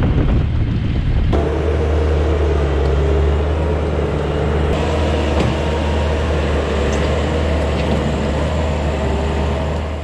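Bobcat T650 compact track loader's diesel engine running steadily with a deep, even hum while the machine works loose dirt with its bucket. The sound shifts about a second in as the view changes from riding aboard to standing beside the loader.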